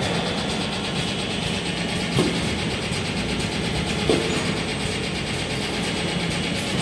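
Spiral paper tube core making machine running: a steady mechanical hum and whir, with two short knocks, about two and four seconds in.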